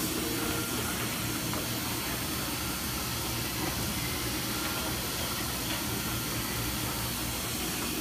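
Steady machine noise of a running bottle conveyor line: plastic slat-chain conveyors and a stainless accumulation turntable moving empty plastic bottles, a constant hiss over a low hum with no distinct knocks.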